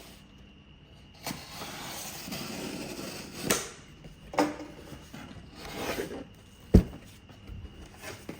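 A boxed tool set being handled: a rubbing, sliding noise for a couple of seconds, then several separate knocks, the loudest a sharp thump.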